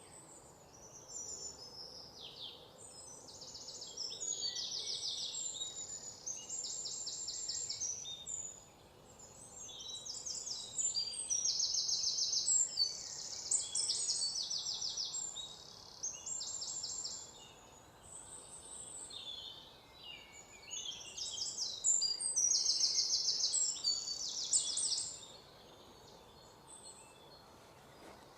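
Several songbirds singing overlapping high, fast trills and chirps, over a faint steady background hiss of open-air ambience. The singing dies away about three seconds before the end, leaving only the faint hiss.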